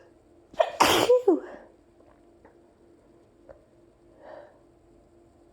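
One loud human sneeze about a second in, from allergies, then a soft breath a few seconds later.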